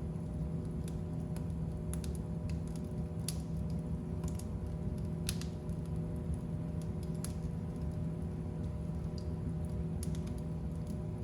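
Fire burning in a fireplace: a steady low rumble with irregular sharp crackles and pops scattered over it, a few louder snaps among them.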